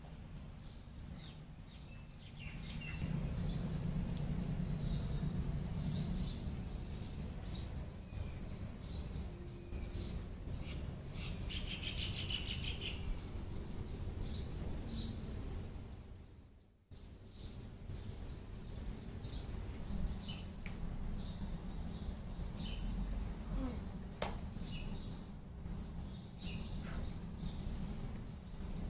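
Birds chirping and calling again and again over a steady low background rumble, with a short drop-out about two-thirds of the way through.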